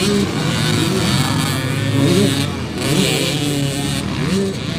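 Several motocross bikes revving at once, their engine pitches rising and falling over one another.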